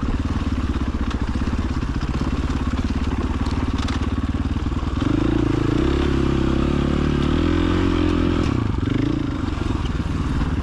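Dirt bike engine running, its note rising about halfway through and dropping back near the end.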